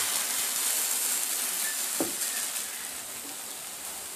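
Thin crêpe batter sizzling in a hot oiled frying pan, a steady hiss that eases down about two-thirds of the way through. A single light click about halfway.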